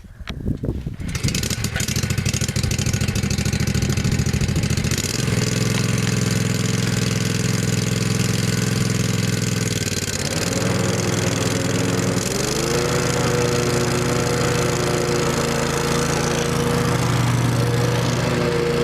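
The 15-horsepower Kawasaki engine of a 2005 Exmark 36-inch Hydro Viking walk-behind mower starting within the first second, then running steadily. Its engine speed changes: the pitch rises about a quarter of the way in, dips about halfway and rises again about two-thirds in.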